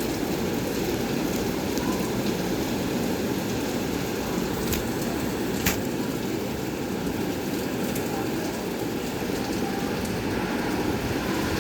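Heavy monsoon rain pouring down in a steady, dense rush, with a couple of sharp ticks from drops striking something hard about halfway through.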